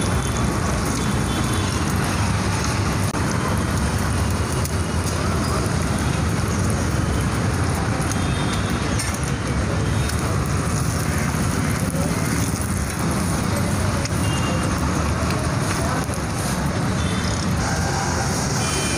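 Steady road traffic noise: a constant low rumble with a hiss over it, with no single event standing out.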